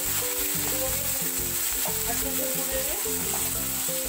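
Chopped onion and tomato sizzling in hot oil in a kadhai while being stirred with a steel spoon, over background music.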